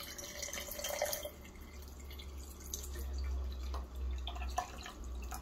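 Cooled black coffee being poured in a steady stream from a jug into a glass mug over ice cubes, splashing and filling as it goes. A few light clicks come near the end.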